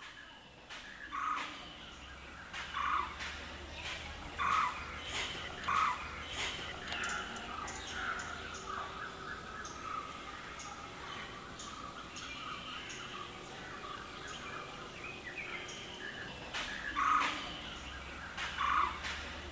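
Birds calling: a handful of louder, harsh short calls a second or two apart near the start and again near the end, over a running chatter of small high chirps.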